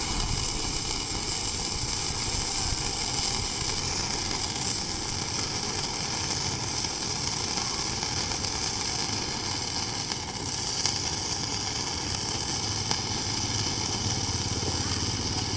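Gasless flux-cored MIG welding arc on steel plate, sizzling steadily through one continuous bead.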